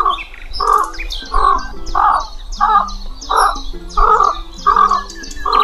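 White stork sounds: a noisy, grainy call or clatter repeated evenly about every two-thirds of a second, with high, thin chirps of small birds behind it.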